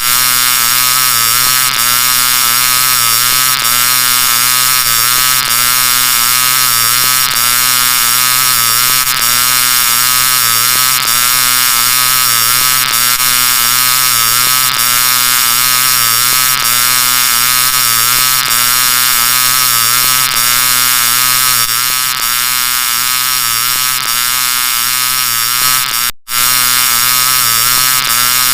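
Heavily distorted, pitch-shifted 'G Major' effect audio: a harsh, steady electronic buzz made of many stacked tones, with a faint tick repeating about every two seconds. It drops out briefly near the end.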